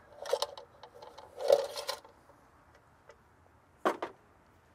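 Handling noise as a metal electrical disconnect box and a torpedo level are shifted against a brick wall: two brief scraping rubs, then a short sharp click near the end.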